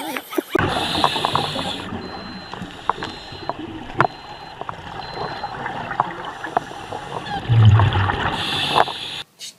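Muffled underwater noise from a scuba dive: a steady hiss with scattered sharp clicks, growing louder for a moment about eight seconds in.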